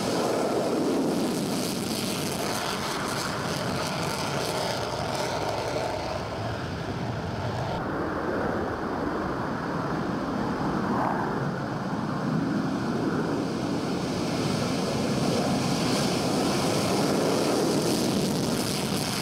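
Steady rushing roar of jet aircraft engines, with the hiss in the upper range dropping away about eight seconds in.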